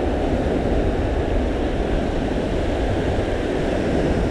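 Steady low rumble of wind buffeting the microphone, mixed with surf washing over the rocky shore.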